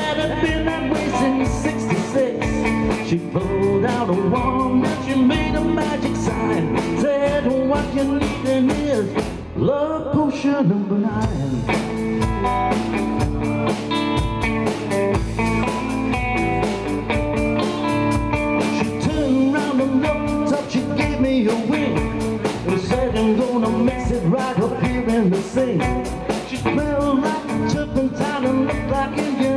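Live rock and roll band: amplified electric guitar and a drum kit with a man singing, in a bluesy groove. The cymbals and drums drop out briefly about ten seconds in, then the full band comes back in.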